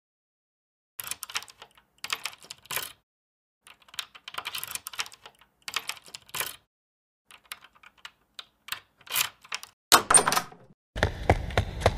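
Bursts of quick, light clattering clicks, each about half a second long with short gaps between them. There is a louder clatter about ten seconds in, and a dense, steady sound with a deep low end comes in during the last second.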